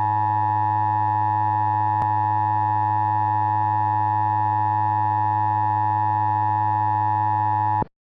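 Emergency Alert System attention signal: a steady electronic alarm tone held unchanged for about eight seconds, then cutting off sharply near the end. It marks the start of an alert, here a severe thunderstorm warning, and is produced by EAS software in a mock broadcast. A faint click comes about two seconds in.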